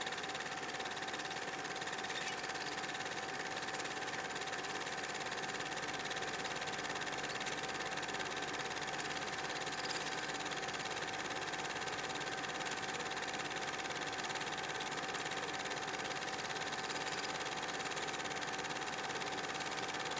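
Reel-to-reel film projector running steadily: an even mechanical whir with a constant tone through it.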